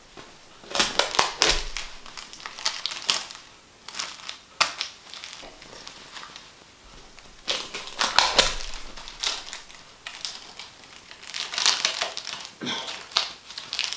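Sticky tape being pulled off the roll and pressed on, with crinkling and crackling in several separate bursts, as pink feather dusters are taped to a shirt.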